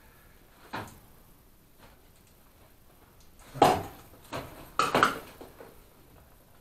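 Scattered knocks and clatters: a faint click just under a second in, a sharp one about three and a half seconds in, a smaller one soon after, and two more close together about five seconds in.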